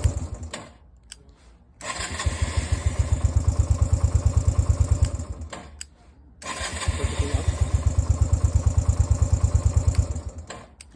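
Yamaha motorcycle engine idling with a steady pulsing beat. It cuts out to near silence three times and starts again twice, during testing of a kill switch that only sometimes kills the engine.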